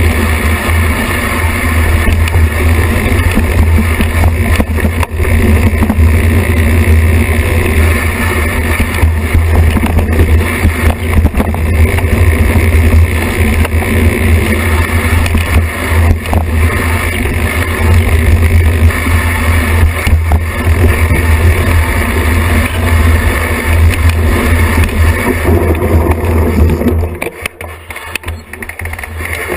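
Wind rumble on a bike-mounted action camera mixed with the hiss and rattle of knobby mountain-bike tyres rolling over dirt singletrack. It is steady and loud, dropping off for a couple of seconds near the end.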